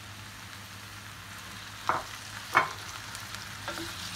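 Cubed beef sizzling in hot oil in a frying pan with sautéed onions and garlic, just added and being stirred with a wooden spoon. Two sharp knocks come about two seconds in.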